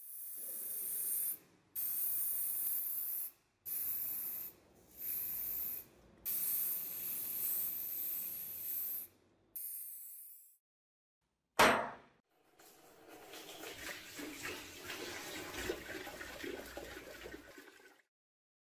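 Aerosol spray paint hissing in about six short bursts of a second or two each. Then a single sharp knock, and liquid cleaner fizzing and bubbling.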